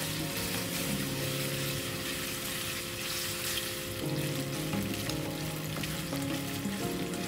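Sliced pork sizzling steadily in hot oil in a nonstick wok, stirred and turned with a spatula.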